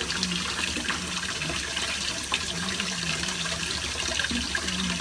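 Kitchen faucet running steadily into a stainless steel sink, the stream splashing over hands peeling a hard-boiled egg beneath it.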